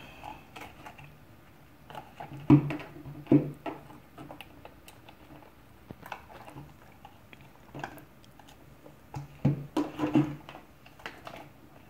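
Handling noises of a flexible silicone soap mold being bent and peeled off bars of melt-and-pour soap: soft rubbing and squishing with scattered soft knocks as the bars are set down on a plastic cutting board, the loudest two about two and a half and three and a half seconds in, and another cluster near the end.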